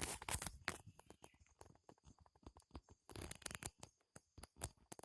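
Irregular rustling and crackling with scattered sharp clicks, loudest at the start and again about three seconds in.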